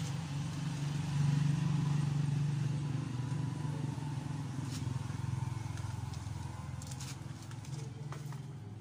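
A motor vehicle's engine running, loudest a second or two in and then slowly fading away.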